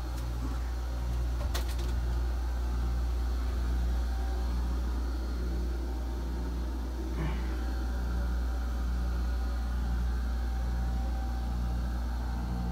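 Steady low machinery hum in a boat's engine room, with a faint steady whine over it and a slow throb. A sharp click sounds about a second and a half in.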